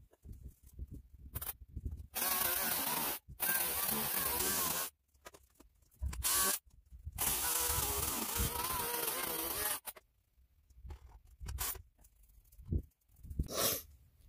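Electric chainsaw running in four bursts as it cuts through firewood logs, each burst a steady whine that cuts off sharply, with short pauses between. Near the end come a few short knocks and rustles.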